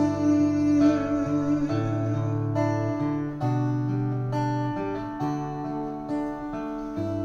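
Acoustic guitar strumming chords in an instrumental break between sung verses, the chord changing about once a second.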